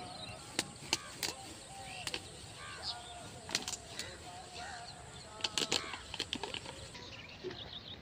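Birds calling in the open: a scatter of short chirps and calls overlapping one another. Sharp clicks stand out above them, loudest about half a second to a second and a quarter in and again around five and a half seconds.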